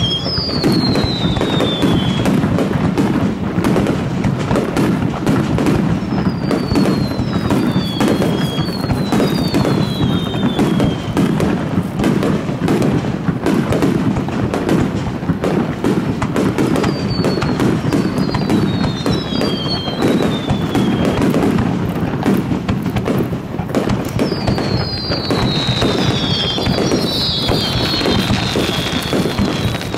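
Rapid barrage of aerial fireworks shells bursting, an unbroken run of bangs and crackles. High whistles falling in pitch come in several groups, crowding together near the end.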